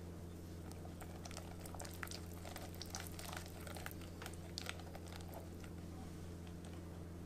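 Whisk beating strawberry puree and lemon juice into soft cream cheese in a glass bowl: wet stirring with irregular clicks and taps of the whisk against the glass, busiest in the first five seconds, over a steady low hum.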